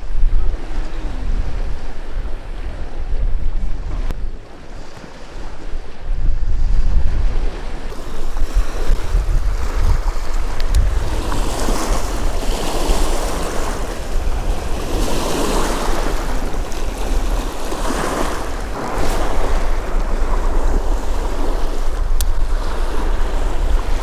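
Strong wind buffeting the microphone with a low rumble. From about a third of the way in, waves wash onto the reservoir shore in swells every few seconds.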